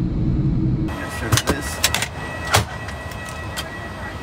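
Steady low rumble of an airliner cabin. About a second in it cuts to a different recording, which holds several sharp clacks over the next couple of seconds and a steady high-pitched tone under a fainter rumble.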